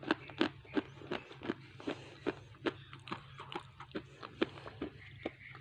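Mouth chewing roasted gray clay, a steady run of soft moist clicks about two and a half a second; the clay has gone soft from damp weather and gives little crunch.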